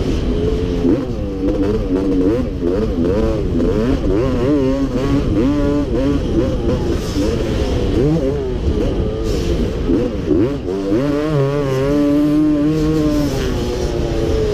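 1989 Yamaha YZ250's single-cylinder two-stroke engine revving up and dropping off over and over as the bike is ridden hard, its pitch climbing and falling with throttle and gear changes, with a longer steady pull about two-thirds of the way through.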